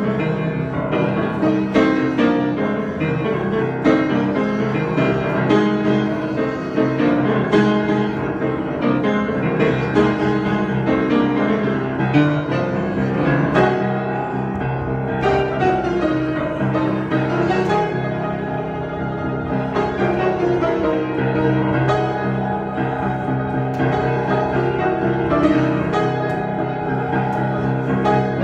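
Piano playing an improvisation, a steady flow of notes and chords.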